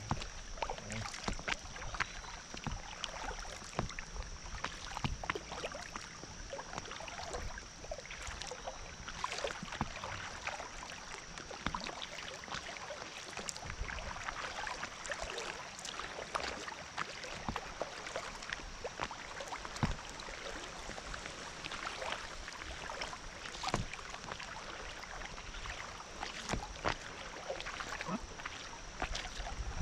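High, fast-moving creek water rushing and splashing against an inflatable kayak as it moves downstream, with many small irregular slaps and splashes on the hull. A steady high-pitched tone sits over the water noise.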